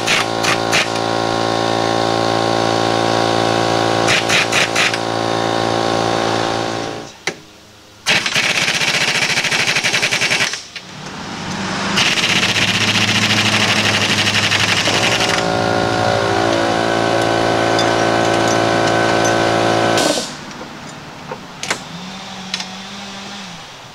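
Craftsman pneumatic impact wrench running in long bursts, whining and hammering as it drives the strut's lower mounting bolts home. A hand ratchet clicks in the last few seconds.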